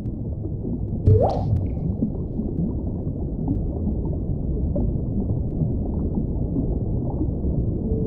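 Underwater whale sounds: a steady low sea rumble scattered with short rising squeaks and moans. About a second in, one louder sound glides quickly upward in pitch.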